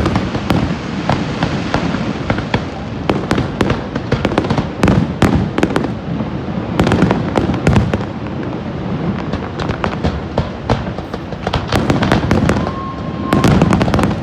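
Fireworks bursting, with low booms and dense crackling pops that come in several waves. A short steady whistle sounds near the end.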